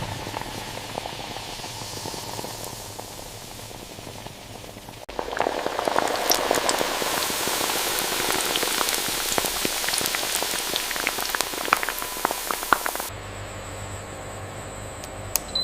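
Fizzing, bubbling noise that turns louder and full of sharp crackles and pops about five seconds in, then switches abruptly near the end to a quieter hiss over a low hum.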